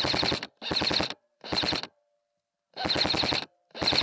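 Airsoft gun firing in short full-auto bursts, five in quick succession with a longer pause midway, each burst a rapid rattle of shots.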